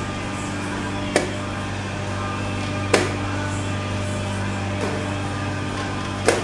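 Blitz chess being played: wooden chess pieces knocked down on a wooden board and the chess clock's button pressed, four sharp knocks about a second and a half to two seconds apart, the third faint. A steady low hum sits underneath.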